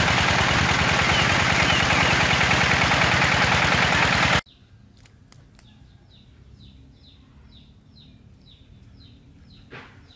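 Small gasoline engine of a mini water pump running with a fast, even pulse, cut off abruptly a little over four seconds in. After the cut a bird gives a series of short falling chirps, about two a second, with a few faint clicks and one brief louder knock near the end.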